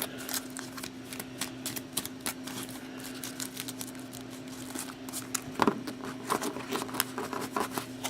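Playing cards being handled on a table: irregular light ticks and snaps of card edges, busier in the second half, over a steady low electrical hum.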